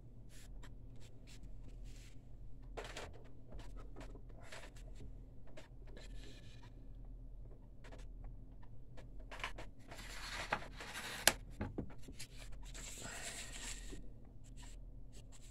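Plastic ink cartridge handled in the fingers: scattered small clicks and rubbing, busier near the end, with one sharp click about eleven seconds in, over a low steady hum.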